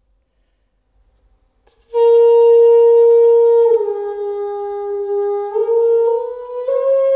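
Granhorn, a Scandinavian spruce horn with three finger holes, played to show its few tones. After about two seconds of quiet it sounds one loud held note and drops a step. It then climbs in small steps to higher notes near the end.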